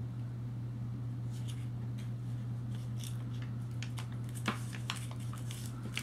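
Foil-lined paper wrapper of a Starburst roll crinkling and crackling as fingers grip and pull at it: scattered crackles that grow denser toward the end, with one sharper crack about four and a half seconds in, over a steady low hum.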